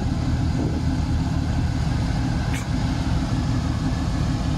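Off-road truck engine running steadily at low revs. A short, sharp click about two and a half seconds in.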